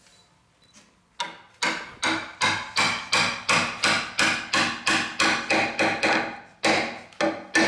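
Carpenter's hammer striking timber in a steady run of blows, nearly three a second, starting about a second in, each blow ringing briefly, with a short pause before the last few. The blows knock parts of a wooden lattice (renji-koshi) frame into place.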